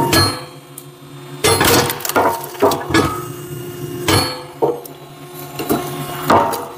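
Hydraulic log splitter working through a knotty, twisted-grain log: repeated sharp cracks and knocks of wood splitting and pieces falling, over a steady machine hum.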